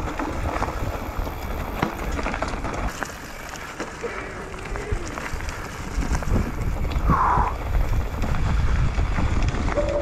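Mountain bike running down a dry, rocky dirt trail: tyres rolling over stones and leaves, with frequent clicks and knocks from the bike rattling, and wind on the microphone. The riding gets louder about six seconds in, and a short high squeak comes about seven seconds in.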